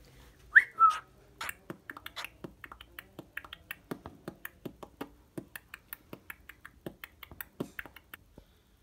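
A cockatiel gives a short whistled chirp that sweeps up and back down, then a second shorter chirp. A long run of quick, soft clicks follows, about four a second, and stops shortly before the end.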